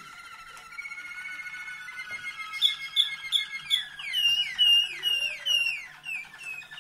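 Waterslager canary song: a long, slightly falling held whistle, then quick trilled rolls, then a run of repeated notes and falling glides, loudest in the middle.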